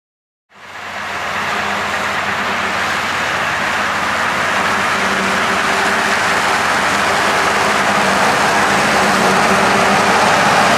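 Farm tractor engines running steadily under load, with drum mowers cutting grass. The sound fades in about half a second in and then holds steady: a low engine hum beneath a broad whir.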